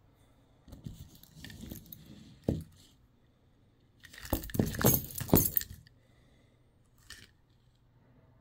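A bunch of keys on a titanium quick-release keyring jangling and clinking as it is handled, loudest in a jangle about halfway through, with a single small click near the end.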